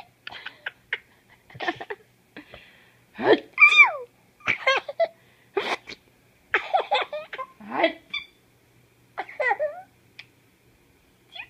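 Infant giggling and laughing in many short bursts, a few of them sliding up and down in pitch.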